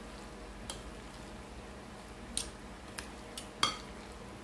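A metal spoon clinking about five times against a glass mixing bowl while stirring thick macaroni salad; the loudest clink comes near the end.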